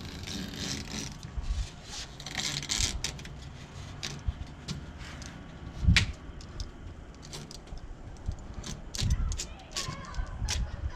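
Hand work on a screen door: scattered clicks, rattles and scrapes of the frame and screening being handled, with one louder knock about six seconds in.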